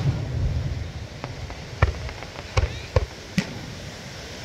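Fireworks exploding overhead: a low rumble from a burst at the start, then several sharp bangs and crackles in the second half.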